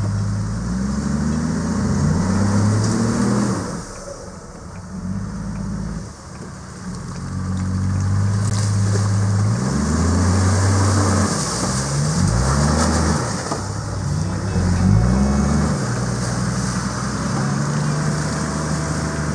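80-series Toyota Land Cruiser engine revving up and easing off several times as the four-wheel drive crawls through a shallow, muddy stream crossing, with a short lull about four seconds in. Water splashes around the wheels partway through.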